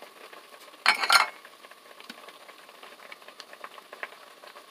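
A pot of soup boiling hard in a stainless steel stockpot, a steady bubbling with small ticks. About a second in there is one brief, loud clatter of dishware against the pot.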